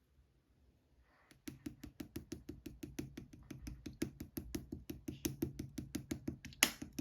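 Slime being squeezed and pressed by hand, giving a quick, even run of small clicking pops, about six a second, starting about a second and a half in, with one louder pop near the end.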